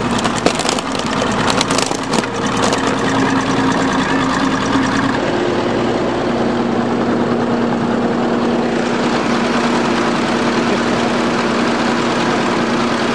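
Bulldozer's diesel engine running steadily, its note shifting slightly about five seconds in, with a few sharp knocks in the first couple of seconds.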